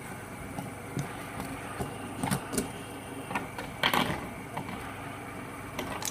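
Fidget spinners whirring steadily as they spin, with a few small clicks and taps.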